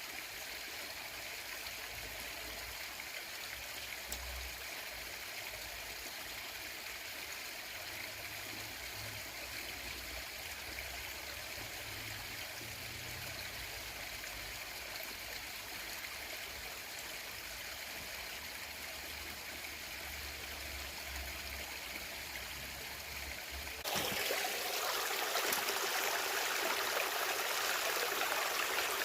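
Clear stream water running and rippling steadily. About 24 seconds in, the water sound turns abruptly louder and fuller.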